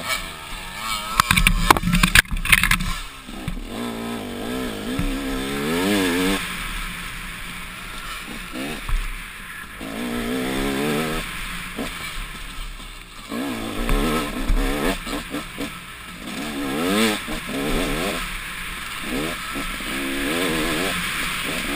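Dirt bike engine revving up and down again and again with the throttle, its pitch rising and falling over and over. A burst of knocks and clatter comes about one to three seconds in.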